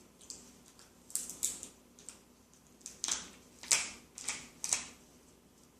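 Small clicks and scratchy taps of fingers and tools handling the parts of an opened iPhone 4S, in a loose run of short strokes from about a second in until near the end.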